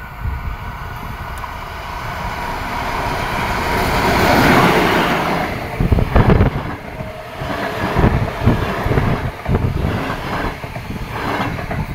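Diesel locomotive hauling double-deck passenger coaches passing close by. The engine and rail noise build to a peak about four seconds in, then the coaches' wheels knock irregularly over the rail joints as they roll past.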